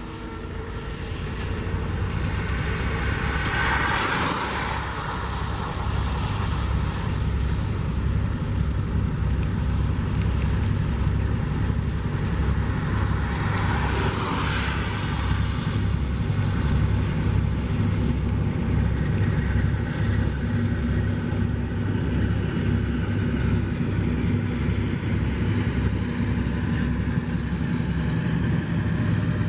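Freight train of two EMD GR12W diesel-electric locomotives and loaded container wagons rolling past, a steady low rumble with a fast, even rhythm from the wheels. Two rushing swells of noise come about four and fourteen seconds in.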